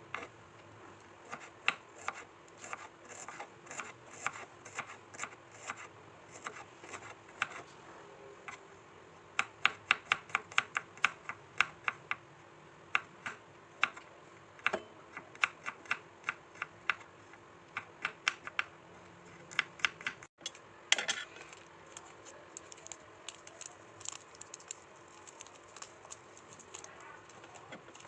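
Kitchen knife chopping on a cutting board: separate strokes at first, then a fast run of about five strokes a second, then more scattered chops after a brief cut-out in the sound.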